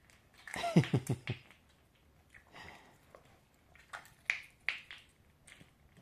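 Dog licking eggshells, a few short faint clicks and scrapes, mostly in the second half. A brief sound of a man's voice about a second in.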